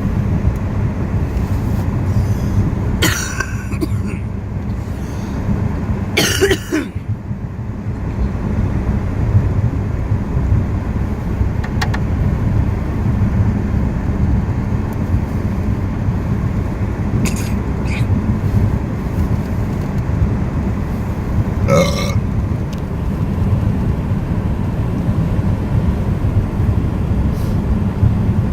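Steady low rumble of a car driving on icy, windswept roads, heard from inside the cabin: engine, tyre and wind noise. A few brief sharper sounds break through it now and then.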